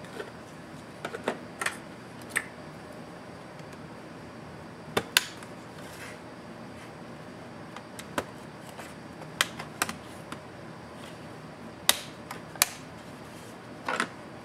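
Irregular sharp clicks and snaps, about a dozen, as the metal bottom cover of an HP EliteBook x360 1030 G2 laptop is pried off with a pry tool and its clips let go. The loudest come about five seconds in and in the last few seconds.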